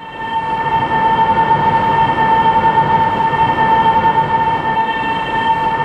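Train running with a loud, steady high tone held over a low rumble.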